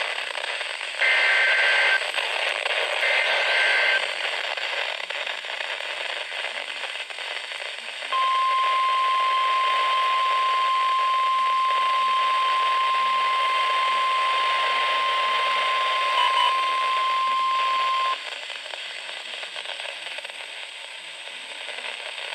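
Weather radio receiver hissing with static, with two short screeching Emergency Alert System (SAME) header data bursts about a second apart. A few seconds later comes the steady 1050 Hz NOAA Weather Radio warning alarm tone, held for about ten seconds, which signals that a warning, here a tornado warning, is about to be read.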